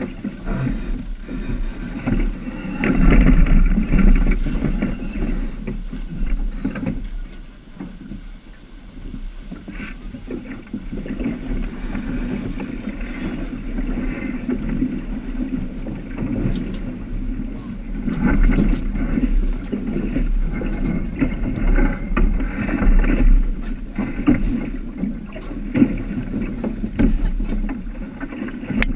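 Wind buffeting the microphone and water rushing along the hull of a J/105 keelboat under sail, a steady rumbling wash that swells louder in gusts.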